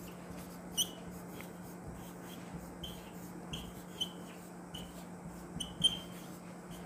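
Marker pen squeaking on a whiteboard during handwriting: about eight short, high squeaks spread through, over a faint steady hum.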